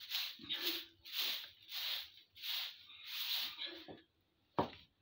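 Rhythmic swishing strokes of a hand tool being dragged through dry straw and litter on a shed floor, about one every 0.6 seconds, with a single sharp knock near the end.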